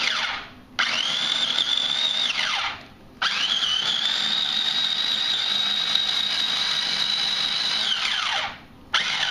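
Food processor motor whining as it is pulsed in several bursts, chopping a wet mix of peppers, onion, garlic and herbs into hot sauce. Each run starts abruptly and winds down with a falling pitch; the longest lasts about five seconds.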